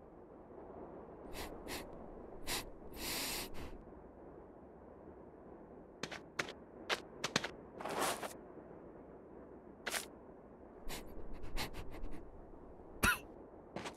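Small clicks, taps and scrapes of a little creature clambering along a barbed wire, with two longer rustles about three and eight seconds in and a sharper knock near the end, over a steady low hiss.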